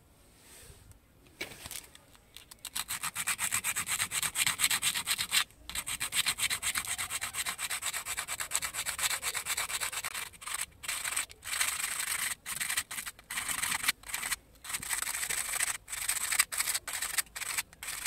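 Sandpaper rubbed by hand over the rusty armature of a small vacuum-cleaner motor, cleaning the rust off its core. Quick back-and-forth rasping strokes start a couple of seconds in, run steadily, then break into short runs with brief pauses in the second half.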